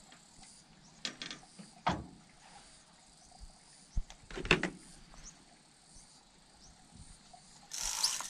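A few faint knocks and clicks from fishing gear being handled on a wooden boat, loudest about four and a half seconds in, then a short rasp near the end.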